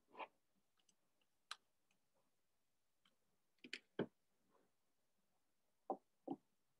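Near silence, broken by about half a dozen faint, scattered clicks.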